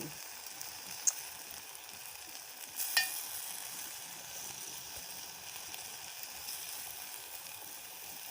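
Steady sizzling from a pan of sweet vermicelli cooking on the heat as its milk dries up, with a sharp click about a second in and a knock near three seconds.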